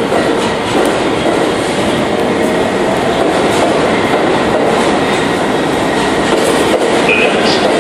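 New York City subway train rolling along the platform, a loud, steady noise of wheels on the rails with a faint held tone.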